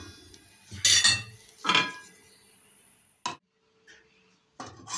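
Kitchenware clattering as a stainless steel pot and plates are set down on a countertop. Two loud clanks about one and nearly two seconds in, the second ringing briefly, then a single sharp click a little after three seconds.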